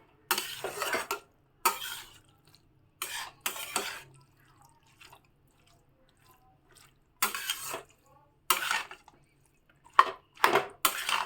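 Spatula stirring and scraping boiled banana flower through spice paste in a kadai. The scrapes come in short bursts with quiet gaps, and there is a longer pause in the middle.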